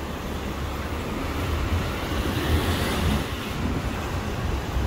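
Dubai Metro train running on its track: a steady low rumble under a rushing noise that swells a little about halfway through.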